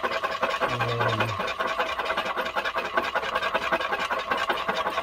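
Metal spoon stirring warmed liquid soft plastic in a glass Pyrex measuring cup, with a steady, rapid scraping against the glass.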